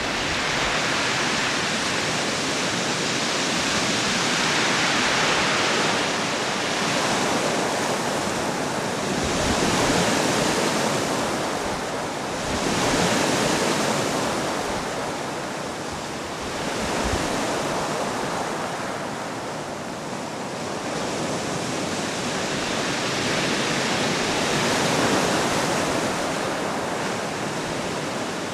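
Sea surf: waves breaking and washing in, a continuous rushing that swells and eases every few seconds.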